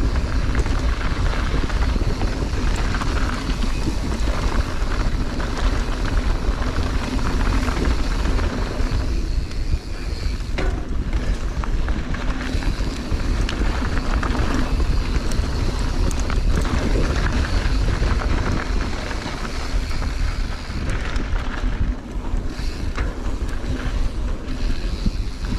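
Wind buffeting the microphone on a fast mountain-bike descent, a steady low rumble over the hiss of knobby tyres rolling on dirt singletrack, with scattered clicks and rattles from the bike going over bumps.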